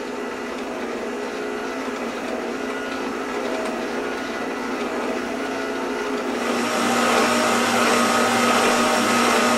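Electric stand mixer running on a slow speed, its motor giving a steady hum with a whine as the beater stirs a wet mix in a stainless steel bowl. It grows louder about two-thirds of the way through.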